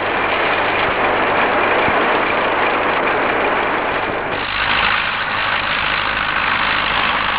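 A combine harvester at work: steady engine and machinery noise, changing in tone about four seconds in.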